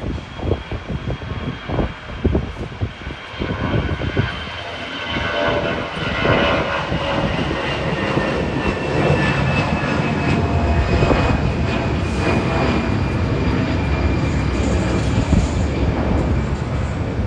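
Airbus A319 jet engines at takeoff power. Uneven rumbling for the first few seconds gives way, about four to six seconds in, to a loud steady engine roar with a faint whine that slowly falls in pitch.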